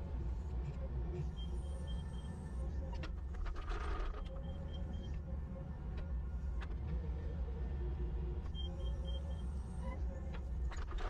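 Compact tractor engine running steadily with a deep, low rumble, driving a hydraulic post-hole auger as it bores into soil, with a brief rush of noise about four seconds in.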